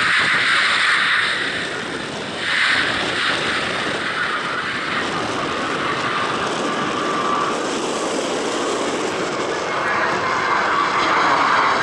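Boeing 737 climbing out at takeoff thrust, its CFM56 turbofan engines making a loud, steady jet noise that dips briefly about two seconds in.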